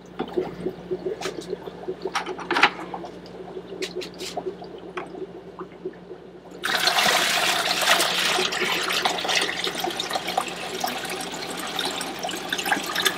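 Water poured out of a plastic bucket through a fish net, a steady splashing rush that starts suddenly about halfway through and keeps going. Before it, a few light knocks over a low steady hum.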